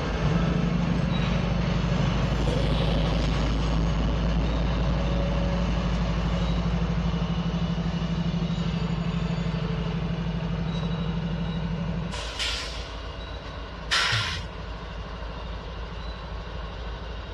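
GE ES44AC diesel locomotive's engine running as it moves off, a steady low drone that falls away about twelve seconds in. Then two short hisses of air from the brakes, under two seconds apart.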